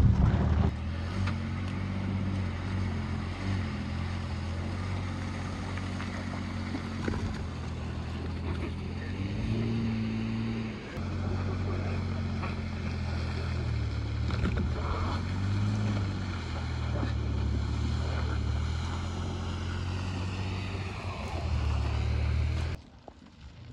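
Vehicle engine running with a low drone, revving up and down several times under load while a car is towed through mud. The sound cuts off suddenly near the end.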